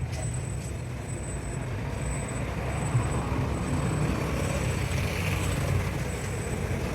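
A motor vehicle engine running steadily with a low, uneven sound, with a couple of light clicks.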